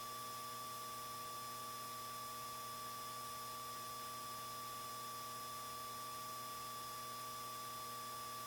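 Steady electrical hum and hiss from the aircraft's intercom audio feed, with several fixed tones and no change in level.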